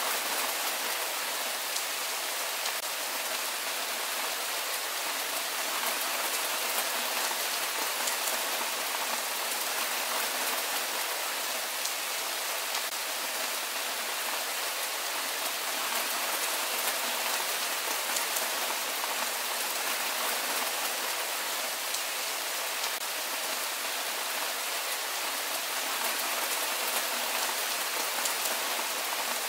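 Steady rain falling: an even hiss, with faint ticks of individual drops.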